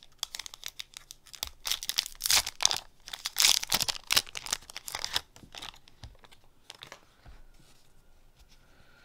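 A Yu-Gi-Oh foil booster pack wrapper being torn open by hand, crinkling and crackling, loudest in the middle and dying down about five seconds in.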